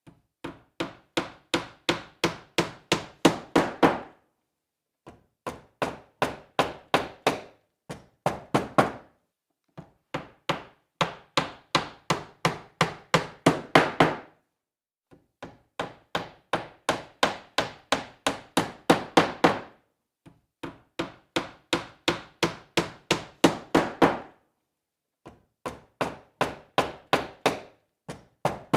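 Hammer driving a nail into wood: quick strikes, about four a second, in runs of a few seconds with short pauses between, the blows growing louder through each run.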